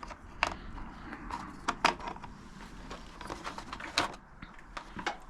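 Scattered light clicks and taps of hands handling a motorcycle's wiring and plastic parts, with the sharpest clicks about half a second in, around two seconds in and around four seconds in.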